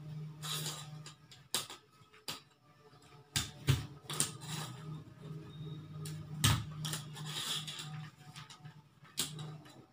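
Large paper sheets rustling as they are pressed and smoothed by hand, with several sharp clicks of a hand stapler fastening paper strips, the loudest a little under four seconds in and about six and a half seconds in. A steady low hum sits underneath.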